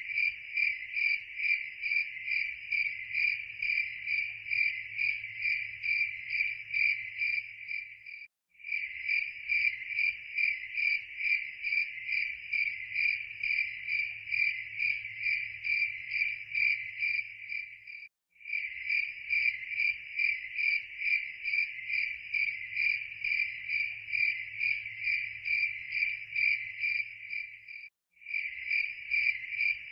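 Cricket chirping in a steady, even rhythm of about three chirps a second. It is a looped recording that cuts out for a moment roughly every ten seconds, three times here, and starts again.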